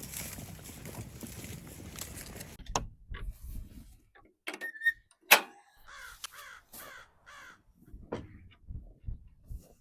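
Crows cawing, a quick run of harsh calls about six to seven and a half seconds in, after a stretch of steady rushing noise; a sharp knock sounds about five seconds in.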